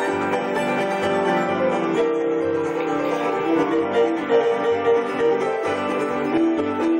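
A live bluegrass-gospel band playing an instrumental passage with no singing: keyboard piano takes the lead over strummed acoustic guitar, mandolin and electric bass. The bass keeps a steady beat of about two notes a second.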